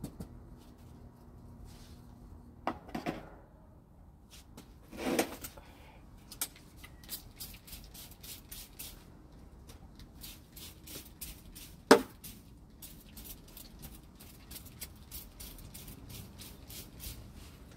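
Scattered light clicks and a brief rustle, with one sharp knock about twelve seconds in and a quick run of ticks near the end.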